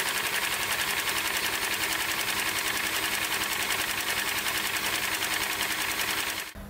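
Kia G4NA four-cylinder engine being cranked on its starter motor with the spark plugs removed and the injectors disconnected, a steady rapid whirr. This priming spin pumps oil through the freshly rebuilt engine until the oil pressure light goes out. It stops abruptly just before the end.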